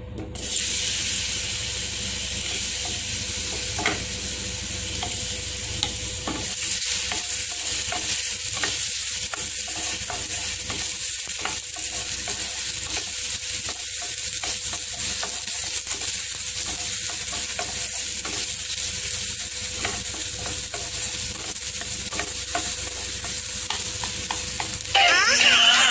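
Chopped nendran banana sizzling as it fries in ghee in a nonstick pan, with a steady sizzle and the light scraping ticks of a wooden spatula stirring the pieces. A brief, louder high-pitched sound comes near the end.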